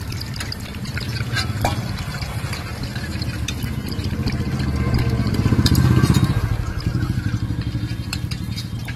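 Battered chicken pieces deep-frying in a kadai of hot oil, crackling and popping. Beneath it runs a low rumble that swells about five to six seconds in.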